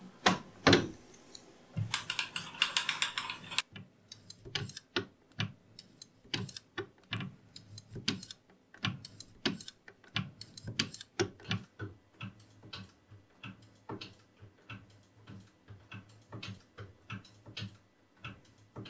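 Milling machine quill worked by hand to slot an internal keyway: a long run of light metallic clicks and ticks, about two or three a second, from the slotting tool stroking and the quill mechanism. A brief hiss about two seconds in.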